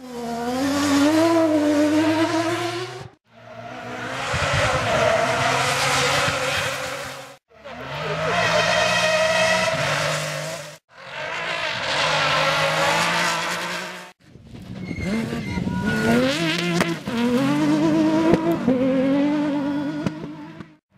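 Rally cars driven flat out on a loose dirt stage, engines revving up and down through gear changes as they slide past. The sound comes as five separate passes, each cut off abruptly.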